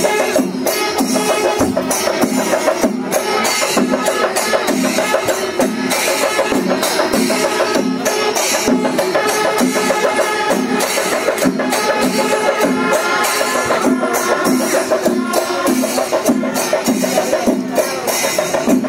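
Drum-led percussion music: fast, dense drumming over a steady beat that repeats about twice a second, with a sustained wavering melody above it.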